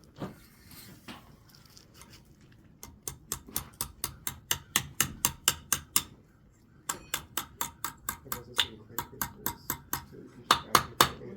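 Blacksmith's hammer striking iron on an anvil in quick ringing blows, about five a second, in runs broken by a short pause. The last few blows are the loudest.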